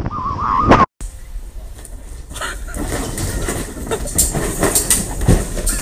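A person yelling in a wavering pitch during a bungee jump, cut off abruptly about a second in. It is followed by a rumbling, rattling clatter with faint voices.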